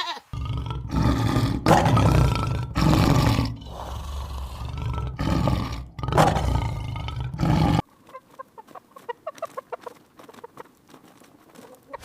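A large animal roaring in a run of loud, rough, deep calls, which stops abruptly about eight seconds in. Hens then cluck softly in quick short notes.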